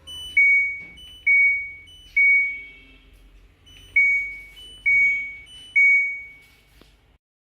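LG washing machine control panel sounding its error alert: six electronic two-note beeps, each a short higher note falling to a longer fading lower one, in two sets of three with a pause between. The alert goes with the washer's DE door error.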